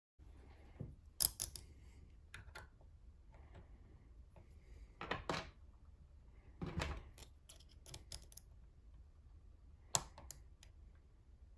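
Lock pick and tensioner working a Zeiss Ikon WSW side-pin lock cylinder: scattered faint metallic clicks and short scrapes, the sharpest click about a second in and another near the end.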